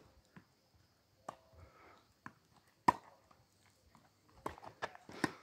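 Tennis ball being hit and bouncing on a hard court: a string of sharp single knocks, the loudest about three seconds in and a quick cluster near the end.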